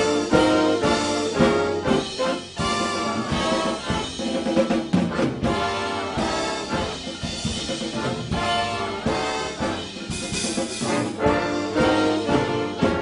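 Instrumental band music with brass instruments to the fore, playing a steady run of sustained chords with a beat under them.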